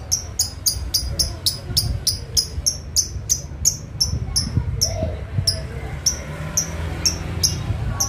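Lovebird ngekek: a long chattering run of sharp, high chirps, about three a second, that slows and thins out in the second half and stops near the end. This is the long 'gacor' song used as a lure to set other lovebirds chattering back.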